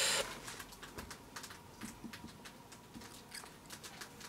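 Faint, scattered small clicks and taps from fingers handling thin wires on a drone's flight controller board during soldering work.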